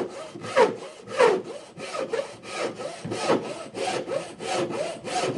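Handmade Chinese wooden frame saw cutting a board by hand, with steady rasping push-and-pull strokes about two a second. The master judges its teeth properly set.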